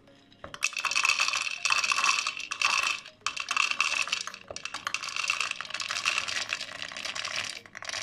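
Dry roasted chickpeas (leblebi) poured from a ceramic bowl into a plastic food-chopper bowl: a dense rattling clatter of hard chickpeas hitting plastic and each other, with a short break about three seconds in.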